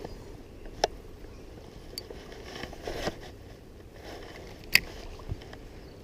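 Handling noise: scraping and rustling broken by a few sharp clicks, the loudest about a second in and near five seconds in.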